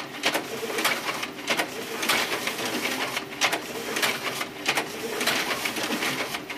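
Office copier's automatic document feeder pulling a stack of pages through for a two-sided scan: a steady motor whir with sharp clacks every half second or so as the sheets are drawn in and fed.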